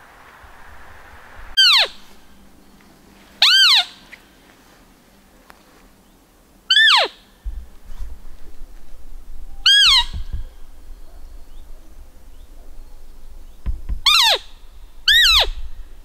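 Roe deer call sounded six times at uneven intervals, each a short, steeply falling squeak imitating a doe's fiep, used to lure a roebuck during the rut.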